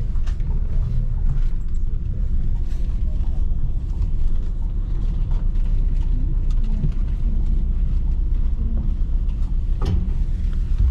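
Low, steady rumble of the coach's Scania diesel engine, heard inside the passenger cabin as the coach moves slowly through the terminal bay, with a few light rattles and a sharper knock just before the end.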